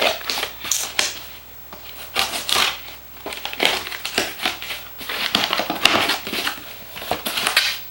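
Keyboard packaging being handled and opened: irregular rustling and crackling in bursts, with short pauses between.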